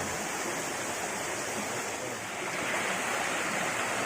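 Steady rushing of flowing water, an even hiss that swells slightly near the end.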